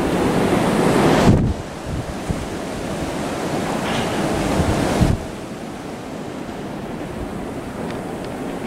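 Strong, gusty snow-squall wind rushing and buffeting the microphone. It drops abruptly twice, a little over a second in and about five seconds in, then carries on somewhat lower.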